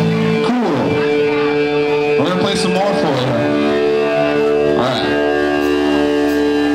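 Live band playing amplified: electric guitars hold long sustained chords while the singer sings into the microphone in short phrases.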